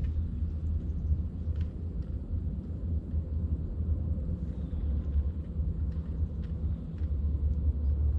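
Steady low rumble of wind buffeting the microphone, with a few faint clicks.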